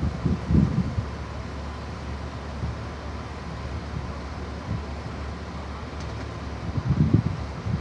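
Wind gusting against the microphone over a steady low rumble, with the strongest gusts about half a second in and near the end.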